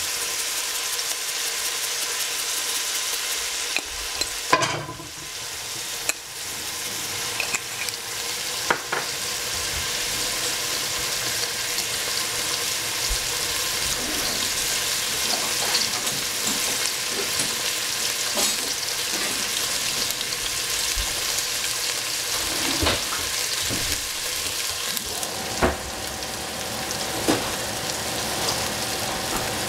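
Sliced red onions and mustard seeds frying in oil in a stainless steel pot: a steady sizzling hiss, with a few sharp clicks scattered through.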